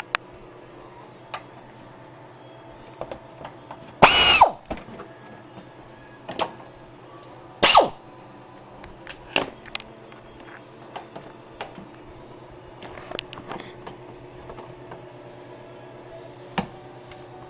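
Hand tools clicking and clunking against a car's plastic splash shield and its push-pin fasteners and bolts: scattered sharp clicks and several louder knocks and scrapes, the loudest about four seconds in, over a steady low hum.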